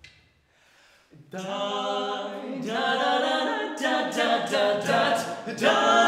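A cappella male vocal quartet singing in close harmony. The voices come in together about a second in, after a near-silent start.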